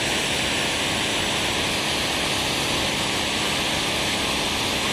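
Bosch Aquatak 125 pressure washer running with the trigger held, its high-pressure water jet hissing steadily from the spray gun over a low hum from the pump motor.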